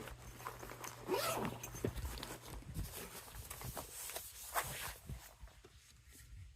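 A zipper being pulled in several short rasps, with a few light knocks of handling.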